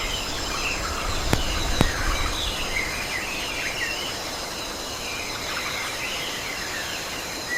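Rainforest ambience: a steady, dense drone of insects with birds chirping through it, and two sharp clicks about a second and a half in.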